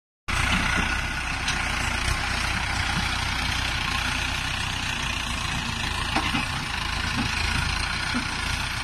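Heavy diesel engine of earth-moving machinery running steadily with a low rumble.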